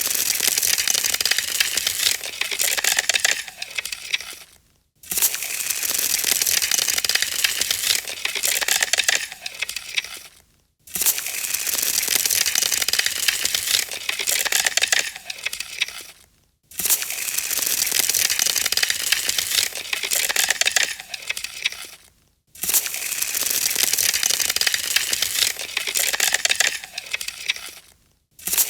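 Dry ice giving off a dense crackling hiss, played five times in a row; each run lasts about five seconds and fades away before a short gap.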